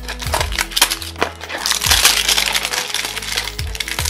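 Crinkling and crackling of a Funko Mystery Minis cardboard blind box and its wrapping being torn open by hand, a dense run of crackles and sharp clicks over background music.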